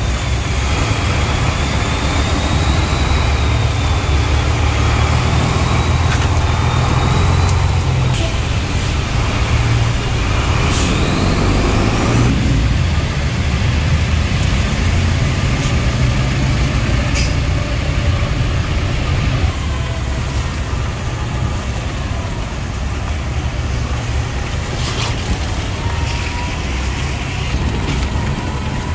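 Engine of a vehicle running steadily at low speed through town traffic, a continuous low rumble with road and traffic noise around it.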